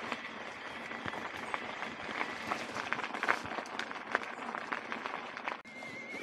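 Mountain bike tyres rolling and crunching over a loose gravel track, with many small crackles from the stones. Near the end it cuts to a smoother rolling hiss on a cracked concrete lane, with a thin steady high tone over it.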